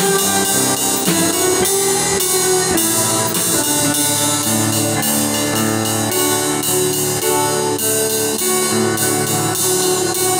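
Live band music with a drum kit and cymbals keeping the beat under held pitched instrument tones.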